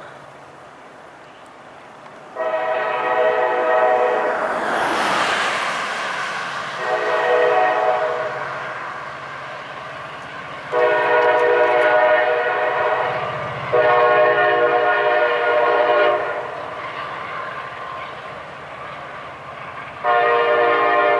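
Norfolk Southern locomotive NS 6921's multi-chime air horn sounding a series of long blasts for a grade crossing, five in all. The third and fourth blasts follow almost back to back. A low engine rumble runs underneath.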